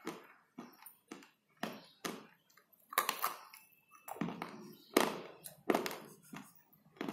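Slate pencil being bitten and chewed: a run of sharp, crisp crunches about two a second, the loudest about three and five seconds in.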